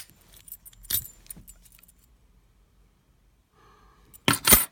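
Metal clinks and rattles from a Yale brass padlock being handled. There is a sharp click at the start, a short rattle about a second in, then two loud jangling rattles near the end.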